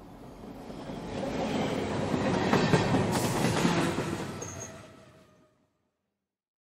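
A train passing by. Its rumbling rail noise swells, peaks about two to four seconds in, and dies away by about five and a half seconds.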